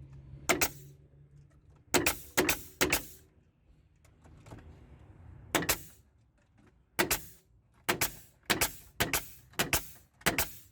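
Staple gun shooting staples into wooden furring strips: about a dozen sharp snaps, a few spread out, then a quick run about half a second apart in the last few seconds.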